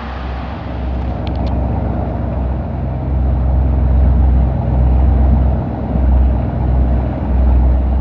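Engine of a Wellcraft cruiser motor yacht under way, a steady low hum that swells and eases several times in the second half. A few faint ticks about a second in.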